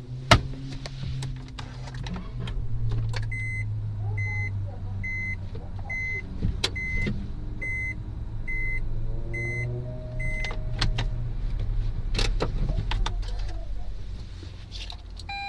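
A car engine idles in a steady low hum, heard from inside the cabin, with a sharp click just after the start. From about three seconds in until about ten seconds, an in-cabin beeper sounds about ten short beeps, some two thirds of a second apart, then stops: the reverse-gear warning as the car backs up slowly. A few more clicks come later.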